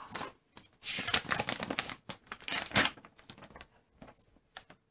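A folded sheet of paper being handled and unfolded, rustling and crackling in a few quick spells that die down to light crackles near the end.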